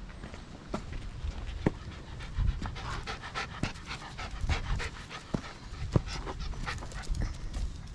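A dog panting quickly, breathing hard in the heat, with footsteps clicking through it.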